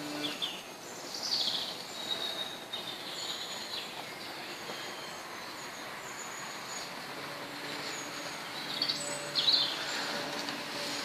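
Birds chirping in short bursts over steady outdoor background noise, with a faint low hum that fades out early and returns in the second half.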